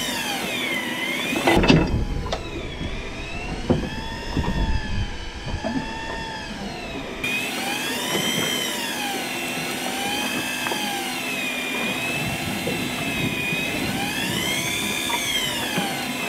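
Electric fishing reel winding in line under the load of a bent rod. Its motor whine sweeps up and down in pitch every two seconds or so. Low rumbling and a few knocks come in between about two and seven seconds in.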